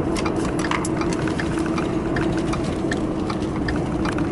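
Pickup truck towing an empty boat trailer over a freshly graded gravel road, heard from inside the cab: a steady engine and road rumble with a low hum, and many small sharp ticks and clicks scattered through it.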